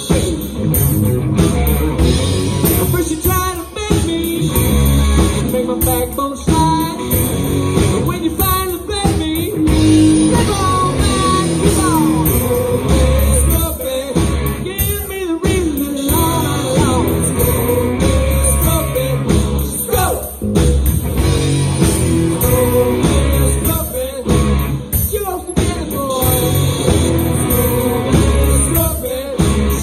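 Live rock band playing, with distorted electric guitars, bass and a drum kit under a sung lead vocal.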